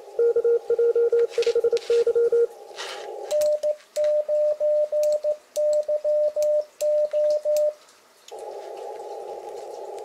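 Morse code (CW) signals from amateur stations in a CW contest, heard through an Icom IC-7300 transceiver on the 20-metre band. One station keys quickly at a lower pitch for about two and a half seconds, then a second station keys at a slightly higher pitch. After a brief lull near the end, steady receiver hiss takes over.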